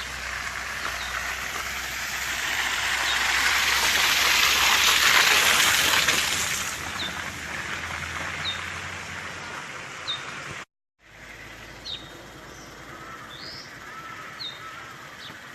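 Steady hiss of rain, swelling to its loudest a few seconds in, with a small bird giving a short high chirp about once a second throughout. The sound cuts out for a moment around eleven seconds in and returns quieter, the rain lighter and the chirps still going.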